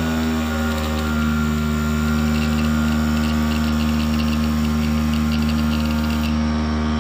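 Sewing-machine electric motor running at a steady speed with a constant hum as it turns the distributor of an ignition simulator. About two seconds in, a fast ticking joins the hum and stops near the end.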